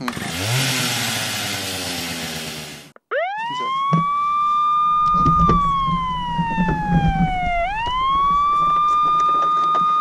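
A loud hissing noise that cuts off abruptly, then a toy fire engine's electronic siren wailing: it rises, holds high, falls slowly and rises again. A low rumble sits under the siren partway through.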